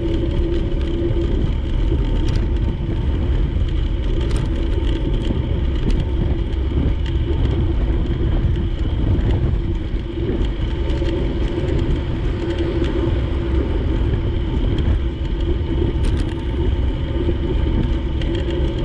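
Steady wind rush and road noise from riding a bicycle along a city street, with a low hum running underneath.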